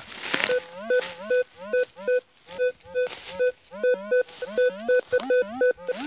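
Rutus Alter 71 metal detector giving a fast run of short electronic beeps, about three a second, many of them sliding up in pitch before holding a steady note: the detector signalling metal under its search coil.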